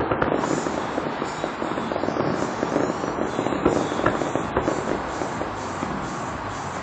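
Fireworks going off at a distance: a run of irregular bangs and crackling pops over steady background noise. The sharpest reports come about three and a half to four and a half seconds in.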